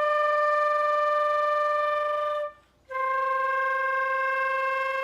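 Transverse flute playing two long held notes, the second a whole step lower than the first, with a short breath gap between them: the closing notes of a slow descending scale.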